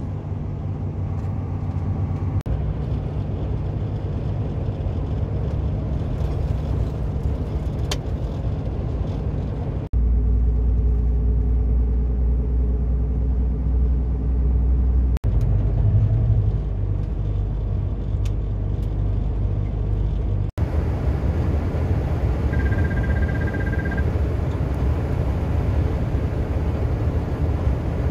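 Steady engine and road rumble heard inside a heavy vehicle's cab at motorway speed, changing abruptly in level three times. Near the end a steady high tone sounds for about a second and a half.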